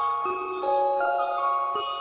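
Background music: a gentle melody of bell-like mallet notes, each note ringing on as the next begins.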